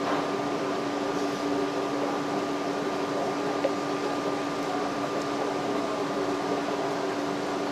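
Steady hum of running machinery: a constant low tone with a fainter higher one over an even hiss.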